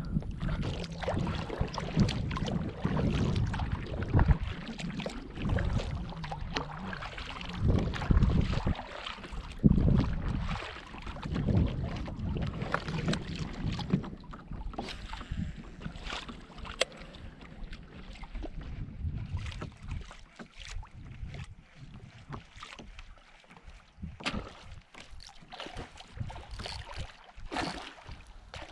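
Movement in a plastic sit-on-top fishing kayak: water splashing and lapping against the hull, with knocks of the paddle and gear on the plastic and wind buffeting the microphone. It is busiest in the first half and quieter and sparser in the second half.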